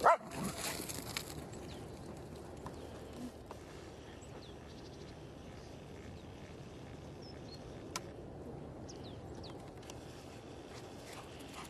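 A dog gives one short yelp during rough play, then steady outdoor background noise with a few faint high bird chirps.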